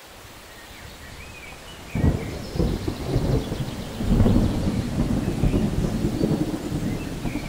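Rain falling, with a roll of thunder that breaks in suddenly about two seconds in, swells again about four seconds in and keeps rumbling.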